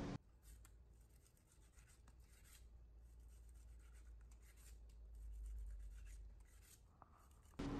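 Near silence, with faint rubbing of a cleaver slicing a grass carp fillet into thin pieces on a wooden chopping board, a little louder about five to six seconds in.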